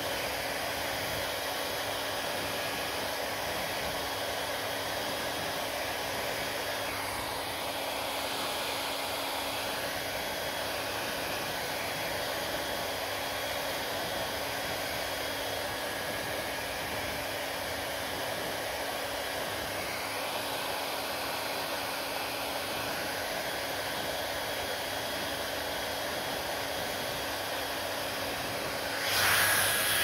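Panasonic hair dryer running steadily: a continuous rush of blown air over a low motor hum. About a second before the end the hum drops out and the rush briefly gets louder.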